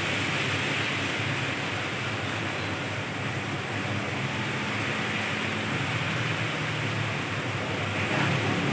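Steady hiss of rain falling on a road, with a low rumble of passing vehicles underneath.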